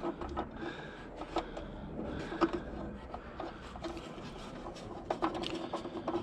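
Scattered small clicks, taps and rubbing as small bolts and parts are handled and fitted by hand in a car's scuttle area.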